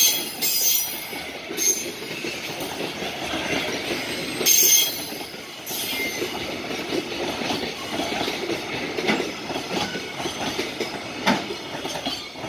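Container freight train's wagons passing close by at speed: a steady rumble and clatter of wheels on the rails, with brief louder rushes of high hiss near the start and about four and a half seconds in.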